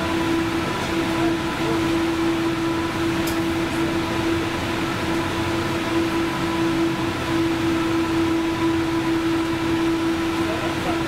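Cab interior of a 71-911EM 'Lvyonok' low-floor tram: a steady electrical hum holding one constant pitch over an even low rumbling noise.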